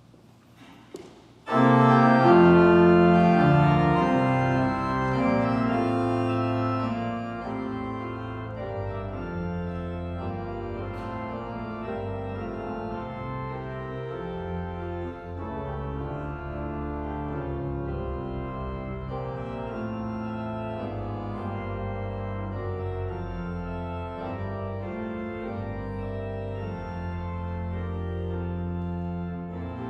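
Pipe organ playing a Christmas music arrangement. Full sustained chords come in suddenly about a second and a half in, loudest at first, then ease to a steady, softer level with held bass notes under changing chords.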